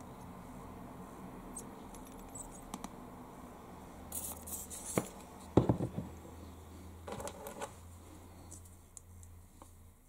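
Small handling noises at a workbench: light clicks, taps and scrapes from a plastic glue bottle and a wooden cocktail stick, with a cluster of sharper knocks about halfway through, over a faint low hum.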